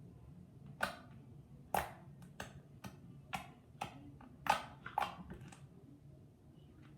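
Slime being squeezed and stretched by hand, giving a series of sharp, irregular clicking pops, about a dozen spread over several seconds.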